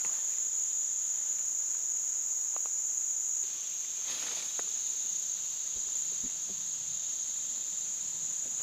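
Steady, high-pitched chorus of insects singing in the woods, with a brief soft rustle about four seconds in.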